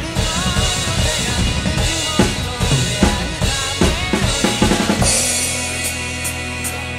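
Acoustic drum kit played along to a rock band's recording: quick kick, snare and cymbal hits over guitar and bass. About five seconds in the drumming stops and the band's chord rings on, with light, evenly spaced ticks.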